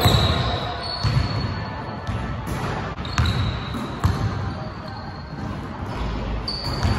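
Basketball bouncing on a hardwood court, with irregular heavy thumps about once a second, and players' sneakers squeaking briefly on the floor.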